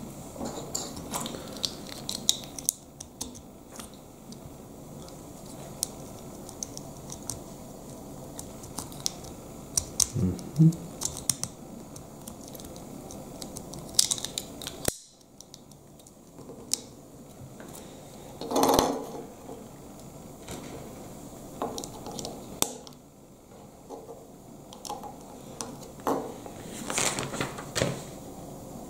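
Plastic Lego bricks being handled and pressed together: irregular clicks, snaps and light knocks of the pieces against each other and the tabletop.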